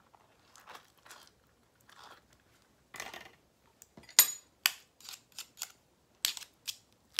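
Metal spoon scooping soft avocado flesh out of the skin and knocking against the rim of the bowl to shake it off: a run of short scrapes and clicks, with a few sharp ringing taps in the second half.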